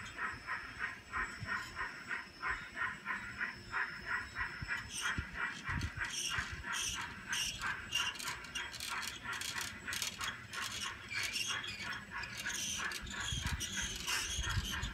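Garden-scale model train cars rolling past on track, their wheels clicking in a steady rhythm of about four clicks a second, with sharper, higher-pitched clicking joining in from about five seconds in.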